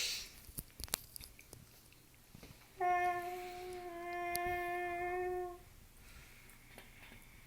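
A man's voice imitating a train horn: a breathy hiss, then a held, hummed horn tone for about three seconds that drops slightly in pitch partway through, as a horn does when a train passes.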